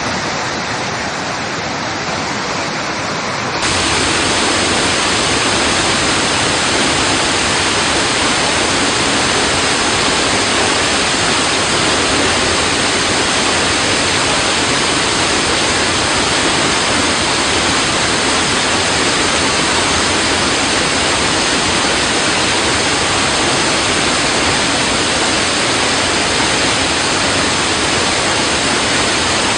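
Water rushing against rocks in a steady, unbroken wash of noise. About three and a half seconds in it jumps abruptly louder and brighter, then holds steady.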